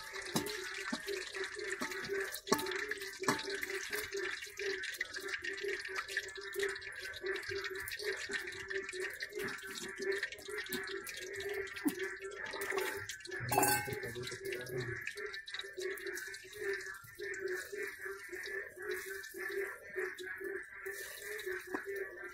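Pumpkin fritters deep-frying in hot oil in an aluminium wok: steady sizzling with dense crackling. A brief louder clatter of the metal utensils just past halfway.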